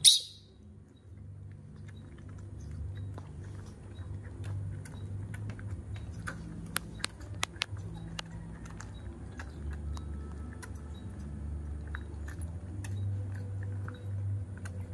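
Baby macaque sucking milk from a feeding bottle, with many small wet clicks and smacks as it drinks, a few louder clicks about halfway through. A brief loud sound right at the start, the tail of a rooster's crow, and a steady low hum underneath.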